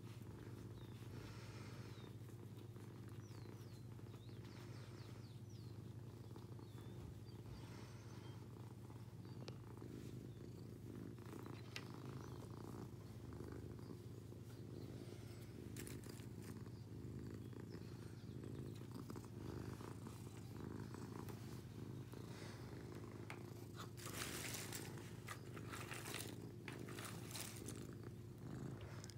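Domestic cat purring steadily while its chin and cheeks are scratched. A few brief rustles come near the end.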